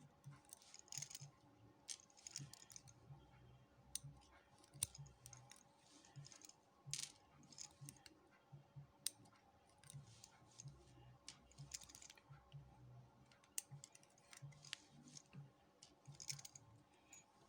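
Faint, irregular clicks and light metallic taps of small lock parts being handled: the pins, drivers and springs of a 5-pin rim cylinder being taken out and set down as it is gutted.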